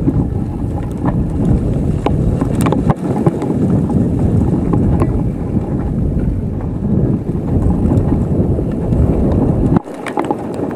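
Wind buffeting the microphone of a camera riding on a mountain bike descending a dirt trail, a loud steady rumble, with scattered clicks and knocks from the bike rattling over bumps.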